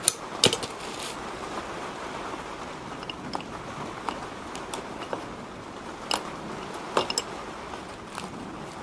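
Scattered light clicks and taps of brake pads and their metal retaining clips being handled and fitted, over a steady background hiss. The sharpest clicks come at the very start and again near the end.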